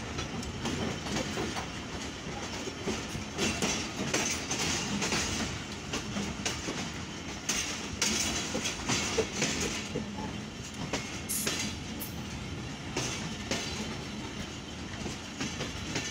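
Passenger train coaches running along the track, heard from the coach doorway: a steady rumble of wheels on rails with irregular clicks and clacks as the wheels pass over rail joints.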